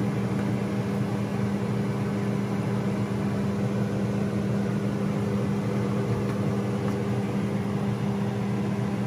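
A kitchen appliance's fan motor running with a steady hum and a low drone.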